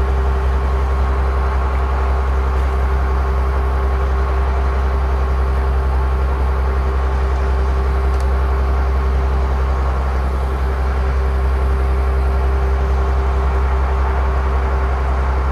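Fishing boat's engine running steadily: an unchanging low drone with a steady hum over it.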